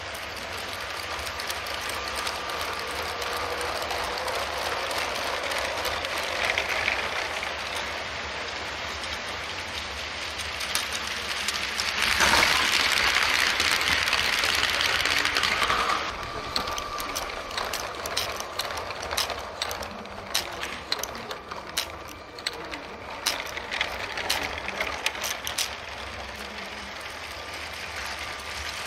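LEGO trains running on plastic LEGO track: a steady mechanical rattle of wheels and gearing. It gets louder for about four seconds as a train passes close by, about twelve seconds in, then turns to a run of sharp clicks.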